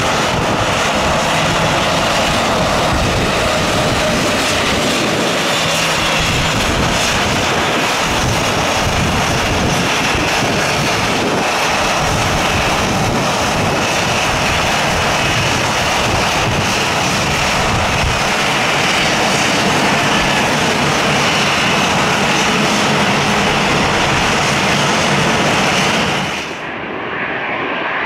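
Airliner engines running loud and steady, a dense roar with a thin high whine in it. Near the end the sound drops abruptly to a quieter, duller engine sound.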